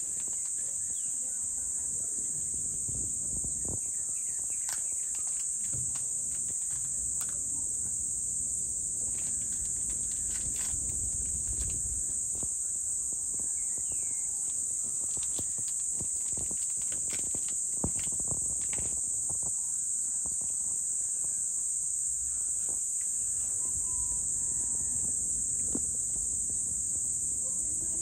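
A chorus of insects: a steady, high-pitched shrill buzz with no let-up.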